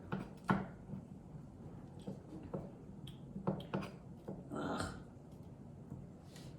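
Kitchen knife cutting an onion, the blade knocking on the cutting board in irregular single strokes, with a brief noisier scrape about two-thirds of the way through.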